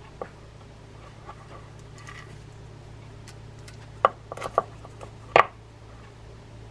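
A few light clicks and taps from handling a spinning reel and a grease brush while greasing the pinion gear, the loudest about five seconds in, over a low steady hum.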